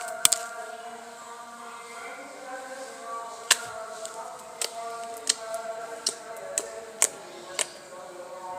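Fluffy slime being squeezed and played with by hand, giving sharp pops and clicks at irregular intervals, over background music with held tones.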